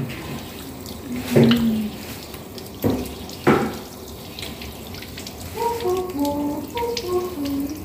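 Kitchen faucet running into a stainless steel sink, with hands working under the stream. There are three sharp knocks in the first half and a run of pitched notes near the end.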